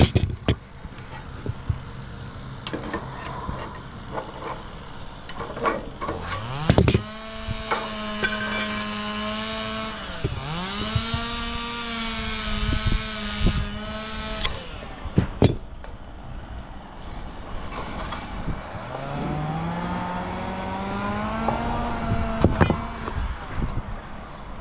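An engine revs up quickly and holds a steady high speed for several seconds, sags briefly and picks back up, then stops. It revs up more slowly again later and holds before dropping off. A few sharp knocks are heard among it.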